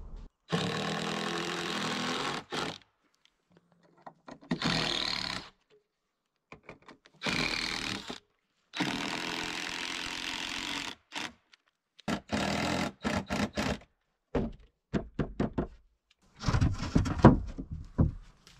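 Ryobi cordless impact driver running in several bursts of a second or two, driving screws into the cedar framing; each burst cuts off suddenly. Near the end come a run of short wooden knocks.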